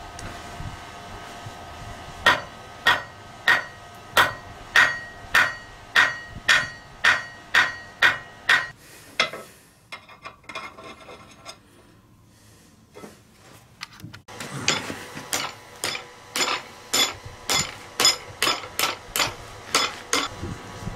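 Blacksmith's hand hammer striking metal on an anvil in a steady run of about a dozen ringing blows. After a few seconds' pause comes a second, slightly faster run of blows.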